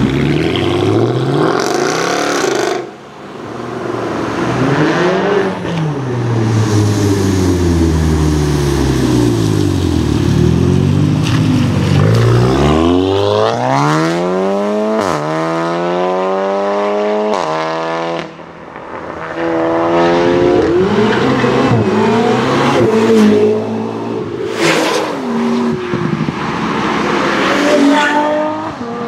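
Several performance cars' engines and exhausts revving, accelerating away and passing, one after another. The engine pitch rises in pulls broken by gear changes, with a few sharp exhaust pops near the end.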